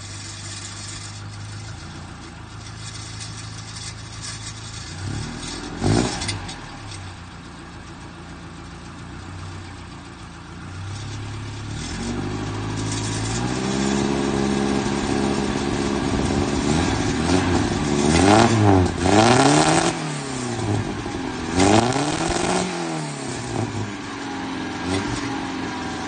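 Volvo 240 engine running through a vertical tractor-style exhaust stack with a flap cap: it idles, blips once about six seconds in, then is held at higher revs and given several sharp revs before settling back.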